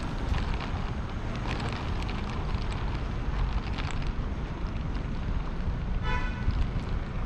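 City street ambience picked up while walking: steady traffic noise with a low rumble of wind on the microphone and scattered light clicks. About six seconds in comes one brief high tone.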